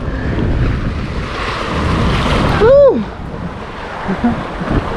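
Wind buffeting the microphone over waves washing against the sea wall, swelling briefly around the middle. A short pitched cry comes near the middle.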